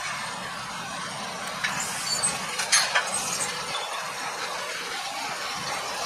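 A Fendt 720 Vario tractor runs steadily while pulling a working Kayhan Ertugrul KE520 small square baler and a Bale Baron 4245T accumulator through hay. Around the middle, a short cluster of sharp metallic clinks and squeaks comes from the machinery.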